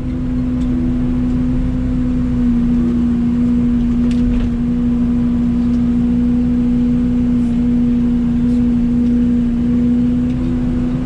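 Mini excavator's diesel engine running at a steady pitch while the machine works its bucket through a scoop cycle of digging, lifting, swinging and dumping dirt.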